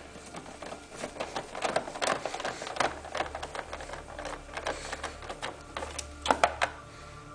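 Rapid, irregular clicking of a hand tool driving the T20 Torx screws that hold down a car's airbox lid, with a louder cluster of clicks near the end.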